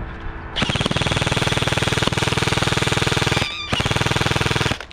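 Airsoft electric rifle (SIG Sauer ProForce MCX Virtus AEG) firing full auto in two long bursts, the first about three seconds, the second about a second after a short break, a fast even clatter of shots with a high whine running under it.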